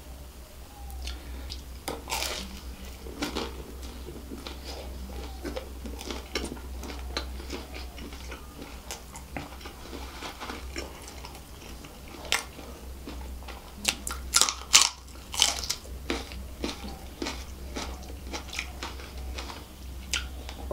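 Close-miked chewing of a deep-fried samosa, its crisp pastry crackling and crunching, with a run of louder crunches about two-thirds of the way through, over a steady low hum.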